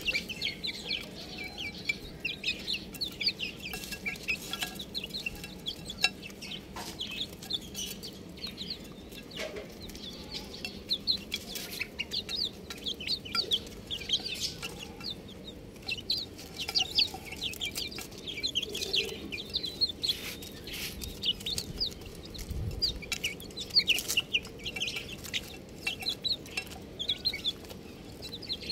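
Several domestic chicks peeping continuously: many short, high-pitched chirps overlapping one another, with a few sharp clicks mixed in.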